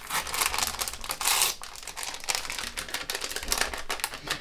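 Packets of kisiel mix crinkling and rustling as they are handled, with a run of small crackly clicks.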